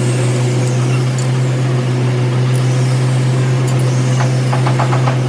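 Workshop machine running with a loud, steady low hum and a constant mechanical noise over it, with a few quick ticks near the end.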